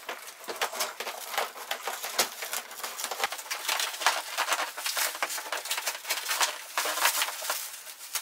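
Plastic wrapping film crinkling and crackling as it is cut with scissors and pulled off a cardboard box, a dense, continuous run of small crackles.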